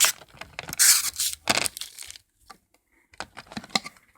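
Packaging rustling and crinkling as it is handled, in several short noisy bursts with the loudest about a second in, followed by a few lighter taps and clicks.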